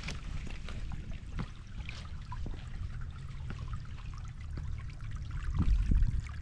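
Footsteps on leaf litter and twigs along a forest trail, with a small stream trickling and a low rumble on the microphone. A few heavier thumps come near the end.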